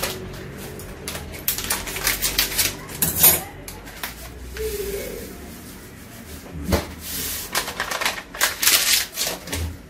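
Foil sachet of flan caramel powder being crinkled and emptied into a small saucepan, with light crackling rustles and clicks in two spells, about a second and a half in and again near the end.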